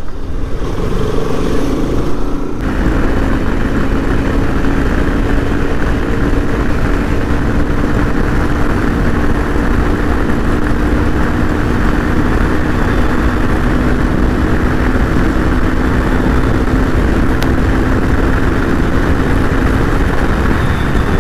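Bajaj Pulsar RS200 motorcycle being ridden at a steady pace, its single-cylinder engine holding an even drone under wind rush on the microphone.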